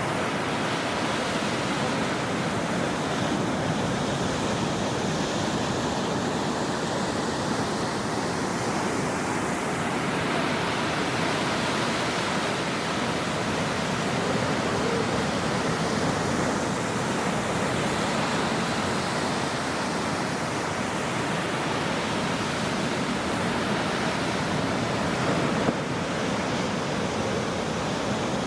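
Ocean surf washing on a shore: a continuous rushing hiss that swells and ebs slowly as waves come in.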